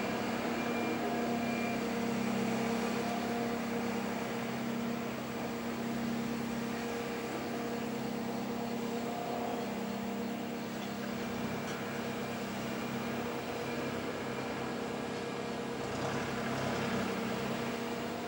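Boeing 727's Pratt & Whitney JT8D turbofan engines running at idle as the jet taxis slowly, a steady jet drone with a few held tones and no change in power.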